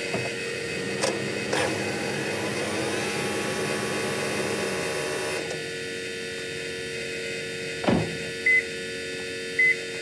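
A 2009 Toyota Prius switched on with its petrol engine not yet running: a steady electric hum and whine from the hybrid system, part of which cuts off about five seconds in. A single clunk comes about eight seconds in, then three short beeps about a second apart.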